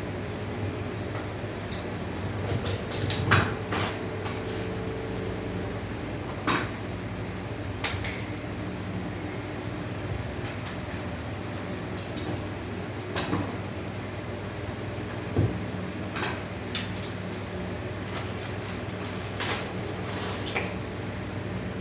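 Irregular sharp clicks and knocks of hard parts being handled, a dozen or so spread unevenly, over a steady fan-like hum.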